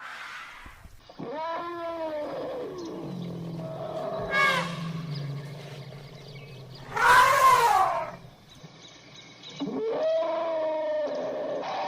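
Mammoth sound-effect calls: about four long, pitched calls, each rising and then falling, with a low rumble beneath the middle ones. The loudest and harshest call comes about seven seconds in.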